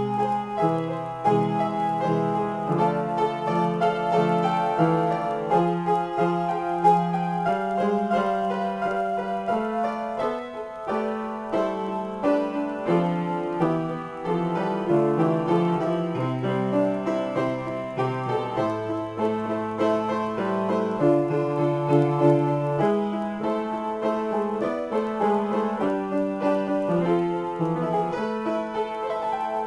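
Solo piano improvisation: both hands play a continuous stream of chords and melody over a moving bass line, without a break.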